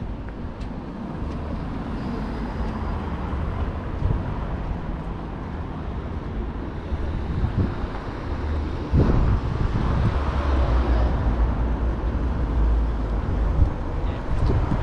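Outdoor city street ambience: a steady low rumble of passing traffic, which grows louder about nine seconds in as a vehicle draws closer.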